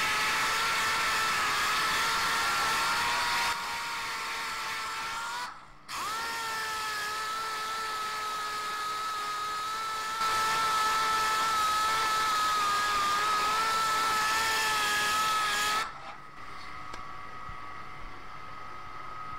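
Dual-action (DA) sander whining steadily as it is worked lightly over the copper-plated brass of a radiator shell near a lead-filled repair. The whine drops out for a moment about five seconds in, picks up again, then stops about 16 seconds in.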